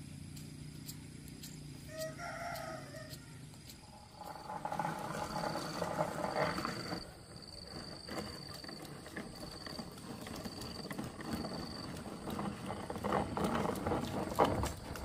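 A rooster crowing once, about two seconds in, followed by louder mixed farmyard sound.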